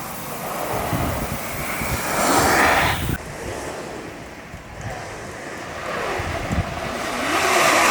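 Freeboard wheels rolling and sliding on pavement with wind rushing over the microphone at riding speed; the rush swells twice and cuts off abruptly, about three seconds in and again just after the end.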